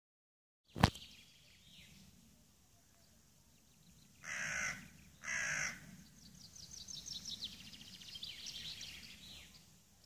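A sharp click just under a second in, then a bird of the crow family gives two harsh caws about a second apart, followed by a songbird's rapid trill of high notes lasting about three seconds.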